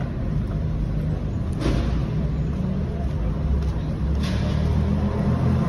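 Road traffic: a steady low engine rumble of passing vehicles that grows heavier about two seconds in, with two short bursts of hiss about a second and a half and four seconds in.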